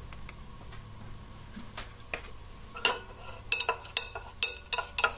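Glass stirring rod clinking against a glass beaker as manganese carbonate powder is stirred into water. The clinks are sharp and irregular, several a second, and start about three seconds in after a stretch with only a low steady hum.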